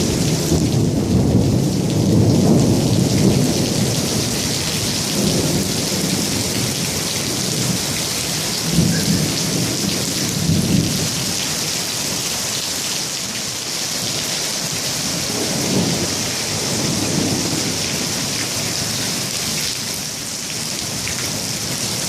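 Heavy rain pouring steadily, with low rolling rumbles of thunder that are loudest in the first few seconds and come back more weakly a few times later.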